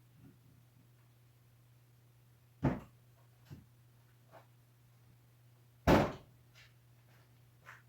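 Two heavy thumps about three seconds apart, the second the louder, with a few light knocks between them.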